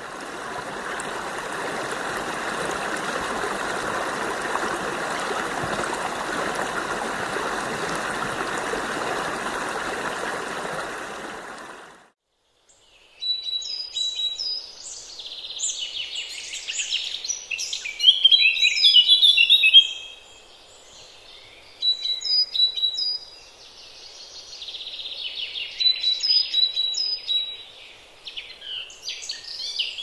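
Running water: the steady rush of a stream for about twelve seconds, which cuts off abruptly. After a moment's silence, songbirds sing in bursts of bright chirps, trills and quick repeated high notes.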